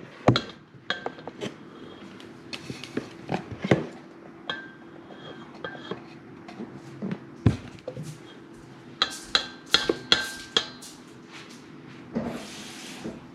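A utensil stirring a slime mixture in a bowl, knocking and clinking against the bowl at irregular moments, some knocks leaving a short ringing tone. A brief hiss comes near the end.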